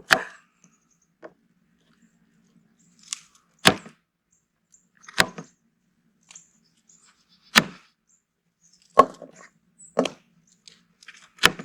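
BPS knife cutting baby potatoes into quarters, each cut ending in a sharp knock; about seven chops, spaced irregularly one to two seconds apart.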